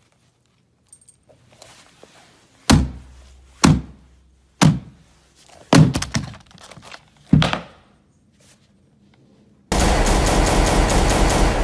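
Cardboard chocolate advent calendar box being knocked and bashed, giving about six dull thunks roughly a second apart. In the last two seconds comes a loud, dense, rapid rattling.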